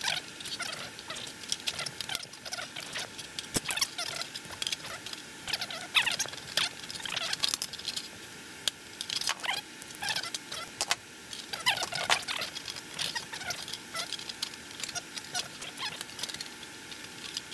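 Hand-held aviation snips cutting thin sheet metal: a string of irregular crisp snips and crunches as the blades bite through the sheet, broken by short pauses.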